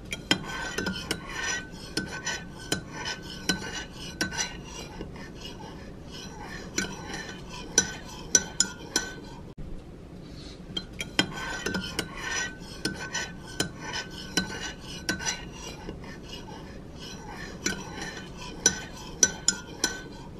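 A spoon stirring coffee in a mug, clinking against its sides in a quick, uneven run of clinks, a few of them louder.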